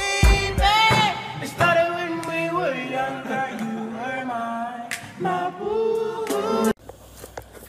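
Background song with a sung vocal line, with a heavy bass beat at the start. It cuts off suddenly near the end, leaving only faint low noise.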